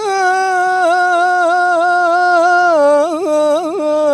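A young man singing a Tunisian song unaccompanied. He holds one long, steady note, then about three seconds in drops to a lower pitch with quick ornamented turns.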